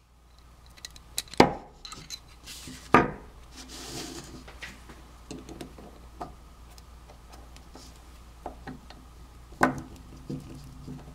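Steel needle-nose pliers clicking and scraping against the chrome head of a vintage Craftsman 3/8" butterfly ratchet as the selector lever is worked at. Sharp metal clicks about a second and a half in, at three seconds and near the end, with small ticks and light rubbing between.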